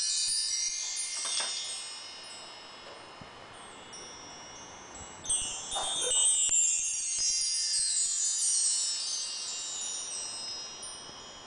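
Bar chimes with 25 solid 10 mm metal bars ringing in high, shimmering tones that slowly fade. About five seconds in, a new run across the bars sets off a fresh cascade of tones that rings down again.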